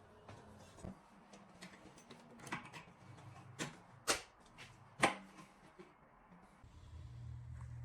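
Scattered light clicks and taps of objects being handled, about six in five seconds, then a low steady hum starts near the end.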